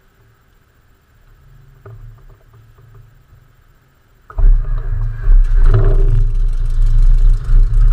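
Cessna 172M's four-cylinder Lycoming engine: a faint hum with a few clicks, then about four seconds in it catches abruptly and runs loudly.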